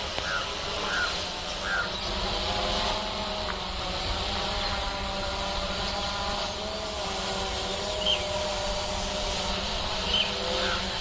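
Hexacopter drone's motors humming steadily in flight, their pitch wavering slightly. Birds chirp briefly a few times, a cluster near the start and more near the end.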